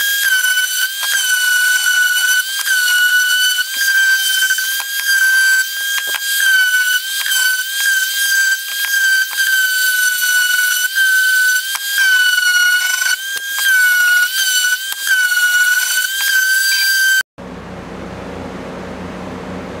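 Table-mounted router running with a steady high whine while rough barn wood is fed past the bit, the pitch sagging briefly again and again as the bit bites into the wood. The whine cuts off suddenly near the end.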